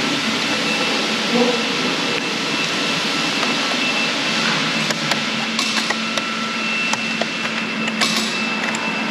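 Steady workshop background noise like a ventilation or air-conditioning hum. In the second half come several light clicks and snaps as a plastic spoke cover is prised off a Bentley Continental GT's alloy wheel.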